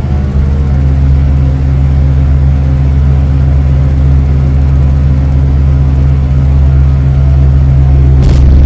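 Loud, steady low drone held on several deep bass tones, with a short hiss near the end.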